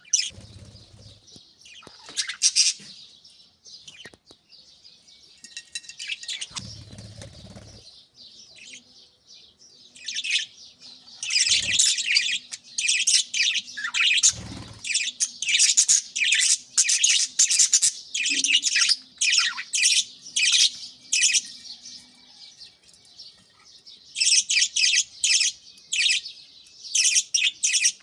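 Pet budgerigars chattering and chirping, with many quick high chirps overlapping. The chirping is lighter at first and comes thick and fast from about a third of the way in. A few brief low thuds are heard along the way.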